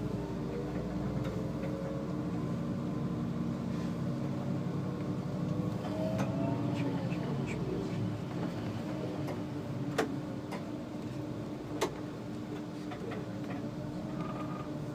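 SOR NB 12 City bus running at low speed, heard from the driver's cab: a steady engine hum with a wavering whine above it. Two sharp clicks about ten and twelve seconds in.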